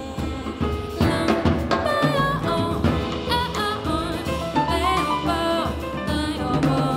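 Live jazz: a female vocalist singing with a band of double bass, drum kit, piano and guitar, her voice coming in about a second in with gliding, bending melodic lines.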